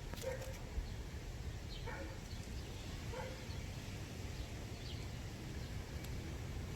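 A few faint, short chirps from a small brown bird, spaced a second or more apart, over a steady low background rumble.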